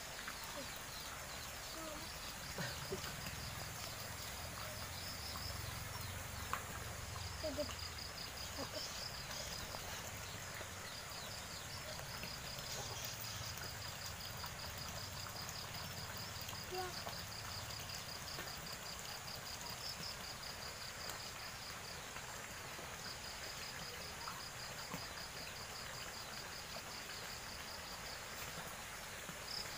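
Insects chirping: a high, evenly pulsed chirp that keeps going with a few short breaks, over faint rural background noise with a low rumble in the first half.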